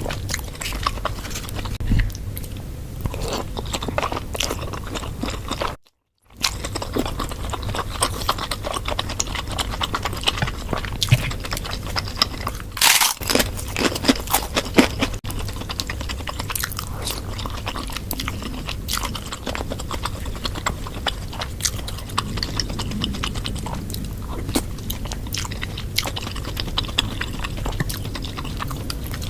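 Close-miked mouth sounds of eating spicy bakso meatball soup: wet chewing and biting with many small crunchy clicks. There is a brief complete dropout about six seconds in and a louder noisy burst around thirteen seconds in.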